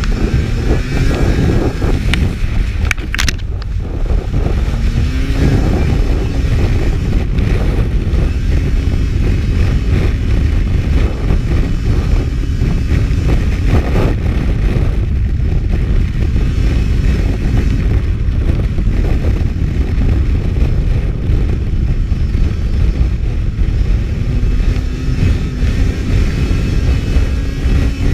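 Race snowmobile engine running hard at speed on lake ice, heard on board under a heavy low rush. The engine pitch climbs again a few times: near the start, about five seconds in, and near the end.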